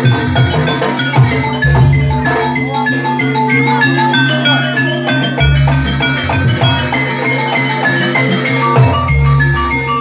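Jaranan gamelan music played loud through loudspeakers: a fast melody of struck metal keys over kendang drumming, with a deep low stroke about every four seconds.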